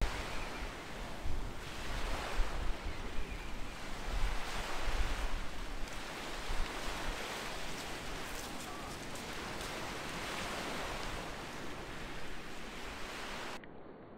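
Small waves breaking and washing up a shingle beach, swelling every second or two, with low wind rumble on the microphone. Near the end the sound drops suddenly to a quieter, duller hiss.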